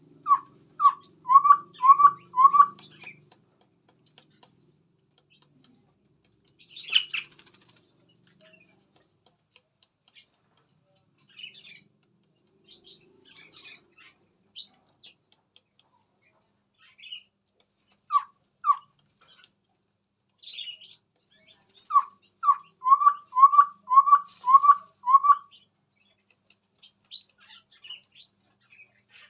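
Chestnut-rumped babbler singing: runs of short, evenly spaced piping notes, about three a second. There are five at the start, two about two-thirds of the way through and seven near the end, with scattered thin, high chirps in between.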